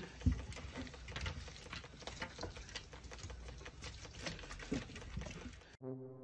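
Rapid, irregular tapping and scratching on a glass door panel, a dog's claws pawing at the glass as a pole-mounted cleaning brush scrubs the other side. It cuts off suddenly near the end, and a brass note starts.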